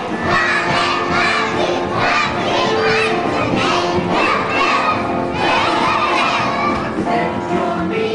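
A group of young children shouting along loudly while a song plays underneath.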